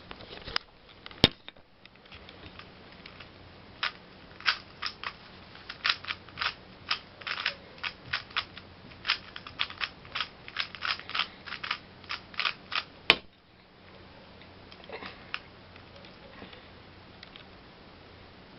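3x3 Rubik's speedcube being turned quickly by hand: a dense run of short plastic clacks as the layers snap round, starting about four seconds in and stopping abruptly after about nine seconds, with only a few faint clicks after that.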